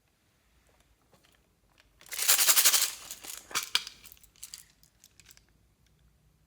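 Close crinkling and crackling: a dense burst about two seconds in, then scattered small clicks and pops that die away.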